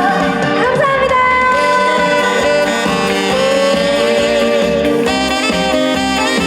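Up-tempo Korean trot song performed live: a woman singing long held notes over a band backing track, with no pause.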